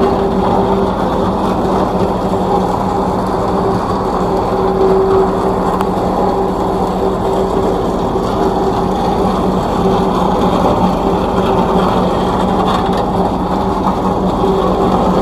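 Tandem road roller's engine running steadily under load, a constant loud drone with a steady pitched hum.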